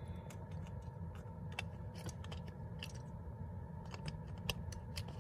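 Faint scattered clicks and rubbing from a handheld phone knocking against clothing, over a low steady hum.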